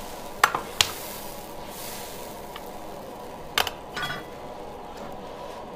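A metal ladle knocking against an iron wok while seasonings are added: two sharp clinks about half a second in, another past the middle, then a brief scrape, over a steady low hiss.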